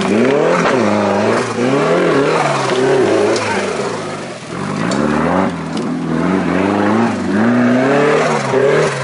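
Off-road 4x4 buggy's engine revving up and down over and over under hard throttle as it claws up a loose dirt slope with its wheels spinning.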